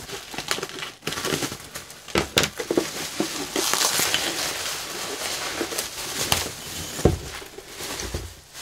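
Bubble wrap and plastic packaging crinkling and crackling as it is pulled off by hand, thickest a few seconds in, with a couple of dull knocks as the wrapped unit is handled.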